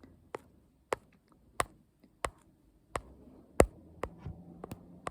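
A row of about eight sharp taps or clicks, evenly spaced a little over half a second apart, the loudest about two-thirds of the way in.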